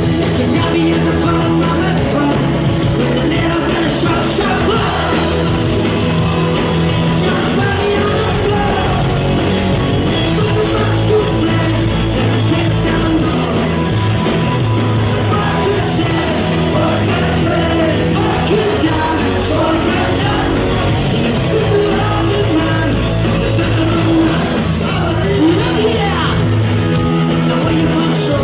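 Rock band playing live and loud: electric guitars, bass and drums with a sung lead vocal, recorded from the crowd.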